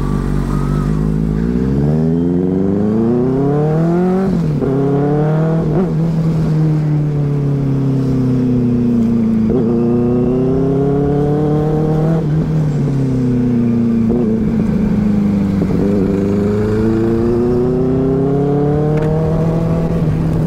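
Motorcycle engine heard from the rider's seat, accelerating through the gears. Its pitch climbs and drops sharply at upshifts about 4 and 6 seconds in, then eases off and builds again several times with the throttle.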